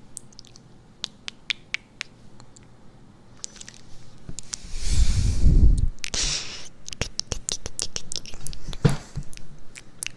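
Close-miked relaxation (ASMR-style) sounds: a run of sharp clicks and crackles, with a louder, deep rush of noise about five seconds in.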